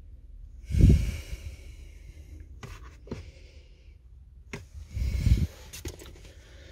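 A person breathing out heavily twice, about a second in and again about five seconds in, with a few sharp clicks in between.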